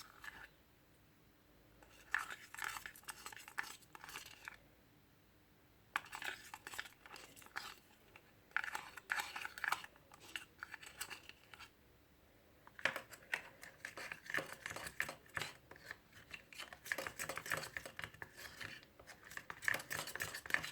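Glue and liquid soap being stirred in a container with a utensil: bouts of sticky scraping and clicking, broken by two short pauses in the first six seconds and then nearly continuous.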